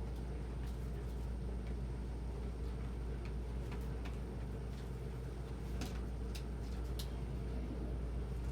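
Steady low background hum, with a few scattered short clicks, most of them between about six and seven seconds in.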